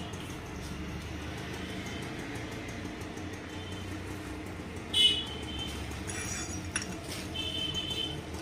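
Steel spacer rings clinking against a steel rod and plate as they are stacked, with one sharp clank about five seconds in and short high metallic ringing after it and again near the end, over a steady low hum.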